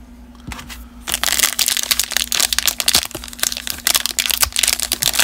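Plastic trading-card pack wrapper being handled and opened, crinkling and crackling in a dense run of sharp bursts that starts about a second in.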